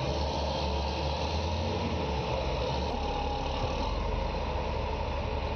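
Heavy diesel engine of a tire-handling machine running steadily while it holds and positions a giant mining-truck tire.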